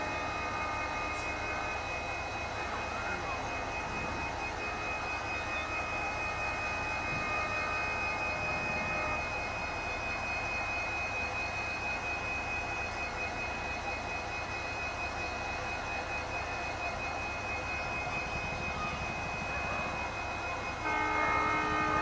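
Diesel locomotive engine running with a steady whine and hum. About a second before the end a locomotive horn starts sounding.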